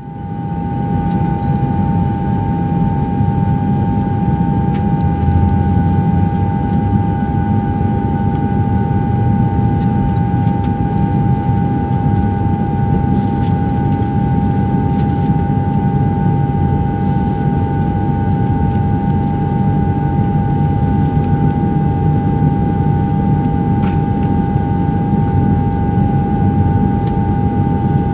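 Airplane cabin noise: a steady low rumble with a steady high-pitched hum over it.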